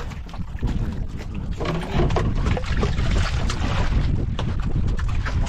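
Wind rumbling on the microphone, with scattered light knocks.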